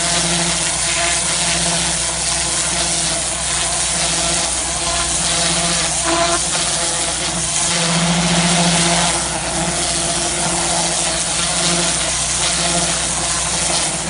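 Pressure washer blasting water through a turbo nozzle against a stone wall: a steady, loud hiss of the jet over the hum of the washer's pump motor.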